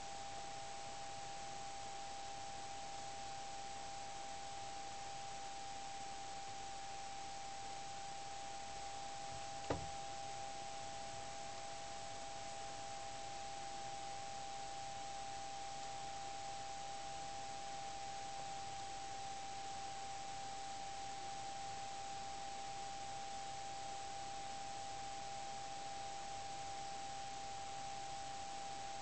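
Steady high-pitched electronic whine over a constant hiss, with a single click about ten seconds in; the snake's slow swallowing makes no sound that stands out.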